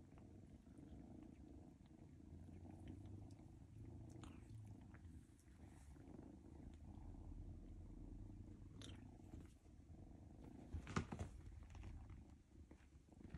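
Kittens purring: a faint, steady low rumble. A short sharp sound comes about eleven seconds in.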